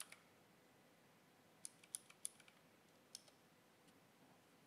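A few faint, scattered clicks of a computer keyboard as numbers are typed in, with a quick run of keystrokes a little before halfway.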